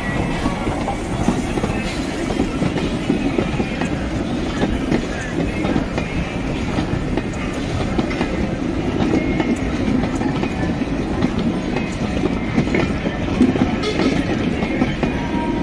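Train of four-wheel wooden passenger carriages rolling past, wheels clicking over the rail joints over a steady rumble.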